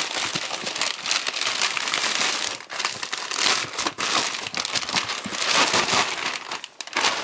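Grey plastic poly mailer bag crinkling and rustling as it is pulled off a cardboard box: a dense crackle with a few brief lulls.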